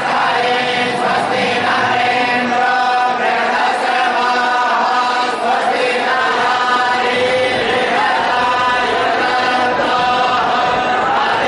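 A group of voices chanting a Hindu devotional chant during a puja, continuous and steady.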